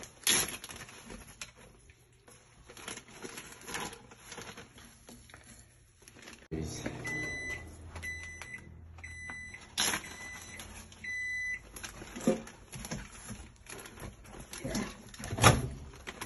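A kitchen appliance starts with a low hum about six seconds in, followed by a run of about six short electronic beeps over the next few seconds. Sharp knocks from handling kitchenware come between them; the loudest is near the end.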